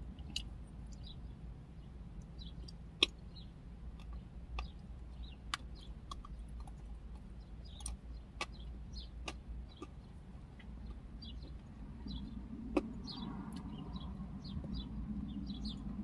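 Faint birds chirping again and again over a steady low hum, with a few sharp clicks scattered through it and a soft rustle starting near the end.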